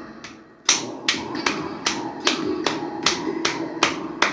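Sonic Pi theremin on a desktop speaker: TB303 synth notes switching an octave apart, with an electronic drum loop of bass drum and closed cymbal samples. The sound drops away, then starts again about two-thirds of a second in as the hand comes over the laser sensor, with about two and a half sharp drum hits a second.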